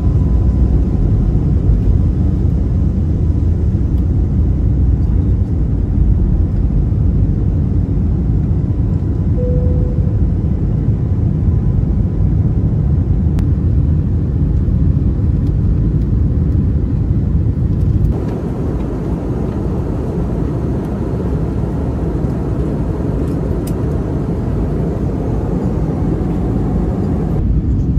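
Airliner cabin noise in flight: a steady, loud, low rumble. It shifts abruptly to a slightly different rumble about two-thirds of the way through.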